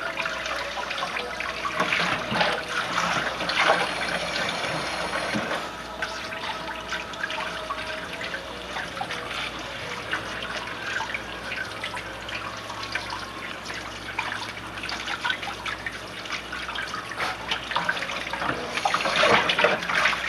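Tap water running and splashing as a wet puppy is washed in a sink or tub, with louder splashes about two seconds in and again near the end.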